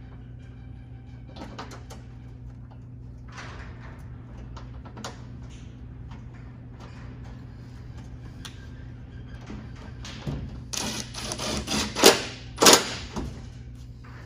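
Scattered metal clicks and knocks of hand tools and nuts being worked on a car's hood hinge bolts, with a run of louder clatters near the end, over a steady low hum.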